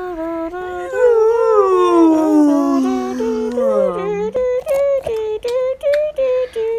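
A person's voice making a long, drawn-out howl that slides slowly down in pitch, then a string of short held notes broken up by sharp clicks.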